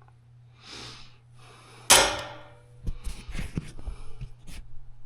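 A loud metallic clank with a short ring about two seconds in, then a run of lighter knocks and rattles of metal tools and transmission parts being handled. A soft breath is heard about a second in.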